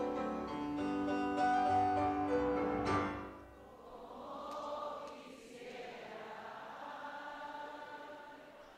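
Grand piano playing a melody that ends on a held chord about three seconds in; then a crowd sings along together, a soft choir-like sound of many voices.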